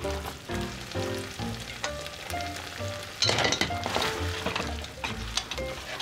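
Spaghetti and octopus ragù sizzling in a hot frying pan as the pasta is tossed and stirred with tongs, with a louder burst of sizzling about three seconds in.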